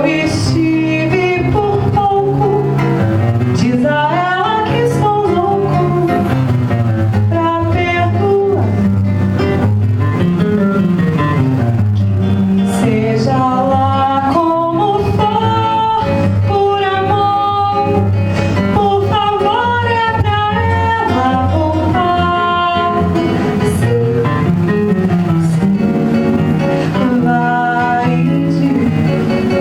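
A violão (Brazilian acoustic guitar) playing a samba-canção while a woman's voice carries the melody, with held notes and sliding phrases.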